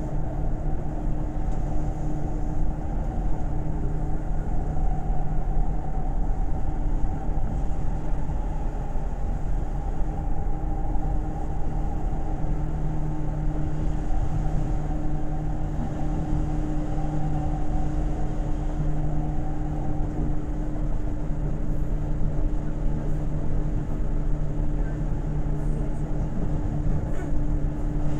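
Seibu 2000-series electric train running between stations, heard from on board: a steady rumble of wheels on rail with a constant low motor hum.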